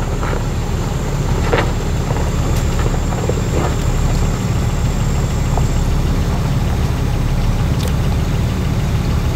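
Off-road 4x4 engine running with a steady low rumble while the vehicle crawls up a steep dirt hill.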